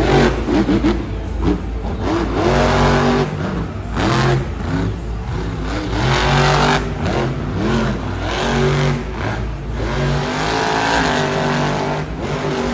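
Son-uva Digger monster truck's supercharged methanol-burning V8 revving hard again and again, its pitch climbing and dropping every second or two as it wheelies and spins in the dirt.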